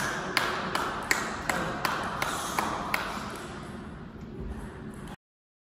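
A table tennis ball bounced again and again, a light ping about three times a second, growing fainter and stopping about three seconds in. The sound then drops out completely about five seconds in.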